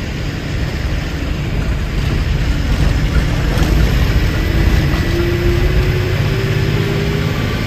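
Bus engine running with road noise, heard from inside the cab as the bus drives; a faint engine tone rises slightly in pitch about five seconds in.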